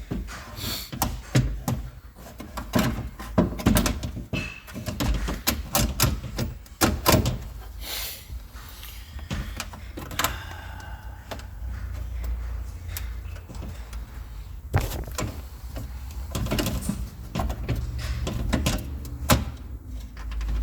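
Repeated clicks, knocks and rattles of parts and tools being handled inside a car door during window regulator and motor reassembly, busiest in the first half, over a steady low hum.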